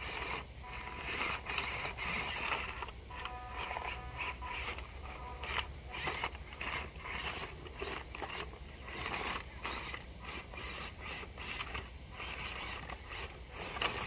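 Small electric motor and gearbox of a 1/16-scale WPL C24-1 RC crawler truck whirring in short, uneven bursts of throttle as it climbs over loose slabs of tree bark, with the bark creaking and knocking under the tires.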